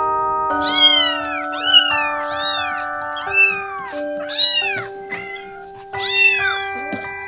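Domestic cat meowing about six times in quick succession, short high-pitched mews that rise and fall, over background music of sustained notes.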